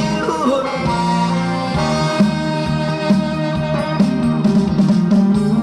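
Instrumental passage of a trot song over the stage sound system, with guitar and a steady drum beat.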